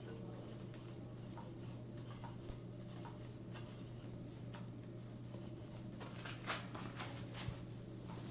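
Light scattered clicks and taps from handling a bicycle and tools, with a few sharper clicks about six to seven and a half seconds in, over a steady low hum.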